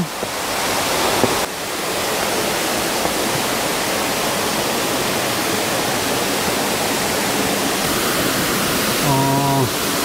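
Waterfall pouring into a mountain stream: a steady, even rush of falling water.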